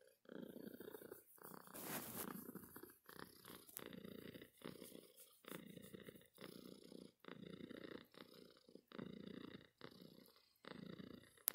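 Dilute tortoiseshell cat purring while being stroked, a faint, steady purr that breaks briefly between breaths, about once a second.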